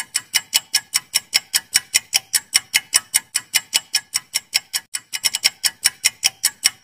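Ticking-clock countdown timer sound effect: rapid, evenly spaced sharp ticks, about five a second, with a brief hitch about five seconds in.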